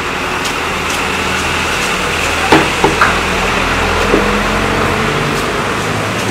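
Steady loud hum and hiss of background machinery, with a few sharp knocks: three in quick succession about two and a half to three seconds in, and one just after four seconds.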